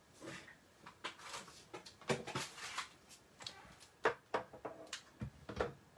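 Clear plastic cutting plate being set down and slid over a die and cardstock on a die-cutting machine's platform: an irregular run of clacks, taps and scraping slides, the sharpest about four seconds in, with a few heavier knocks near the end.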